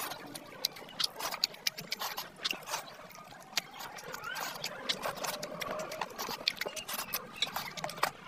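Close-up wet chewing and lip-smacking of a man eating oily mutton fat curry and rice by hand: a rapid, irregular run of sticky mouth clicks and squelches. A few faint squeaky glides come in about halfway through.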